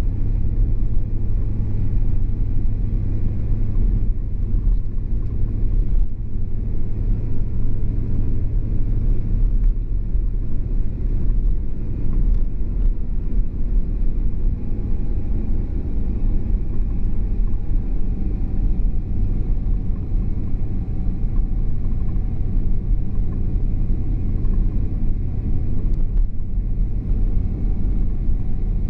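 A car driving along a city street, heard from inside the cabin: a steady low rumble of engine and road noise.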